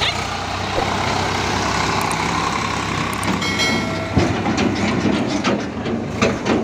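Swaraj 744 FE tractor's three-cylinder diesel engine running as it pulls a loaded trolley past. From about four seconds in, the trolley's drawbar and steel body clank and rattle over the rough track.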